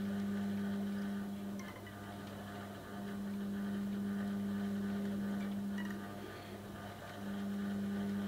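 Electric motor of a foot-pedal rod-wrapping machine humming as it turns a rod blank to wind thread on, run in three short stretches with brief stops between: stopping about a second and a half in, running again from about three seconds to six, then starting once more near the end.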